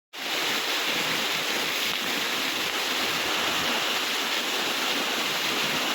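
Waterfall's steady rush of falling water, a dense hiss that cuts in suddenly at the very beginning and holds level.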